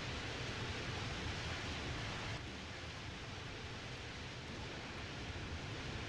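Jet noise from a landing Boeing 777-300ER's two GE90 turbofans: a steady rushing roar with no clear whine, easing off slightly about two seconds in.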